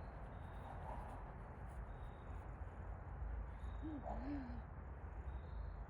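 Faint steady background rumble, with a soft two-part low call about four seconds in.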